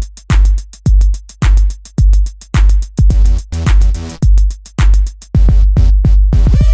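Electronic background music with a heavy kick drum on a steady beat, about two hits a second, and ticking hi-hats; a sustained bass comes in about five seconds in.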